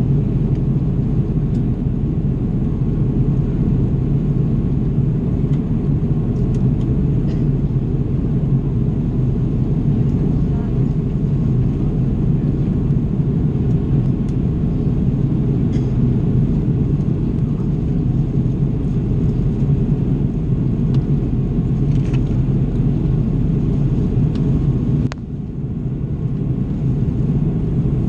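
Airbus A330 cabin noise heard from a window seat in flight: a steady low rumble of the jet engines and rushing air. The level briefly dips about 25 seconds in, then comes back.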